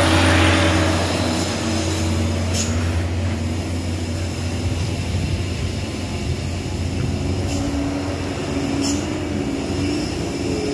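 Diesel truck engines running steadily, with a truck passing close by loudest in the first second, then the low engine sound of loaded trucks working up the bend.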